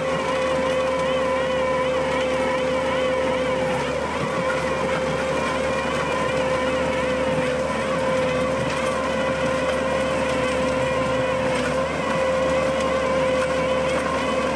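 Skid steer running a cold planer attachment at steady high revs, with a steady, slightly wavering whine over the engine noise.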